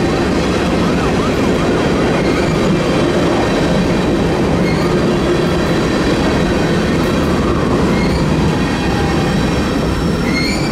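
An empty flat-car freight train rolling past at speed: a steady, loud rumble and rattle of steel wheels on rail, with a faint wavering wheel squeal in the first couple of seconds.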